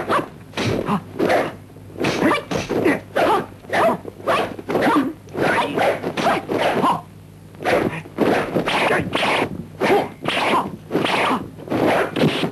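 Kung fu film sword-fight sound effects: a fast, irregular run of whooshing swings mixed with the fighters' short shouts, several a second.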